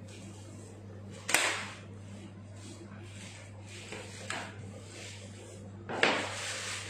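Two sharp knocks about five seconds apart, the second trailing off for most of a second, with a fainter knock between them, over a steady low hum.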